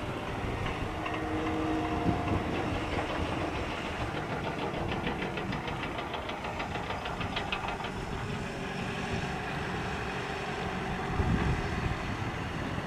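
Airbus A220-300 jet airliner running on the ground, a steady engine rumble and hiss with a faint rhythmic pulsing in the middle. A gust of wind hits the microphone near the end.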